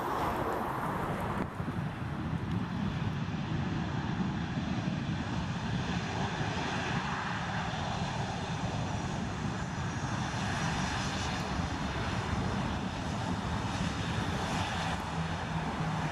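Boeing 737's CFM56 turbofan engines running as the jet taxis: a steady rumble and hiss with a faint high whine.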